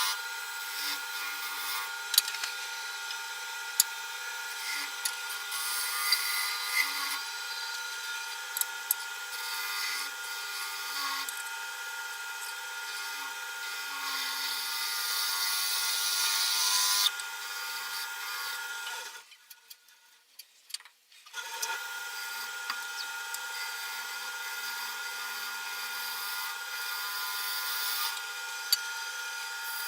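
A wood lathe running with a steady motor hum while a tool cuts a spinning wooden bowl, giving a hissing, scraping cutting noise with occasional sharp clicks. About two-thirds of the way in the sound drops away to near silence for about two seconds, then resumes.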